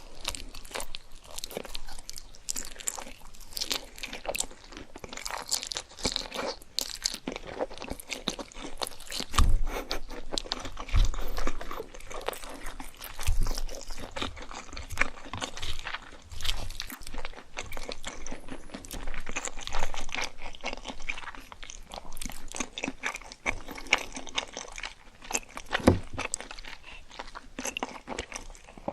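Close-miked crunching and chewing of crispy fried food, with bites and crackly chews one after another and a few heavier low thumps now and then.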